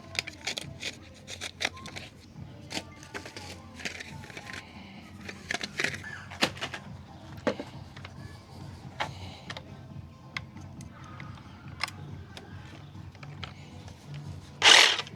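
Scattered clicks, taps and knocks of hands swapping the blade on a DeWalt DCS367 cordless reciprocating saw, fitting a metal-cutting blade into its keyless clamp, over background music. Near the end there is one short, loud noisy burst lasting about half a second.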